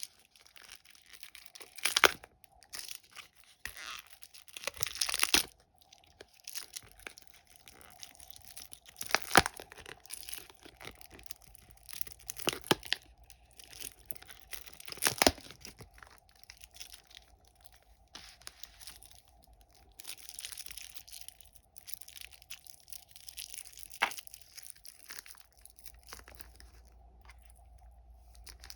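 Plastic candy wrappers being crinkled and torn open by hand in irregular bursts, with a few sharp snaps or cracks. A faint steady hum runs underneath.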